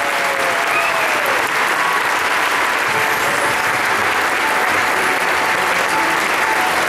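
Theatre audience applauding steadily, with a cheer or two in the first second.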